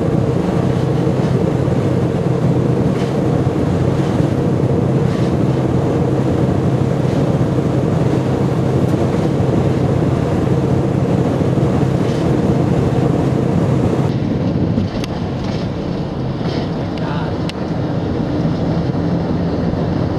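Steady cabin noise of a car driving at highway speed: a low engine hum with tyre and road rumble. About two-thirds of the way in it changes abruptly to a slightly quieter drone with a few faint ticks.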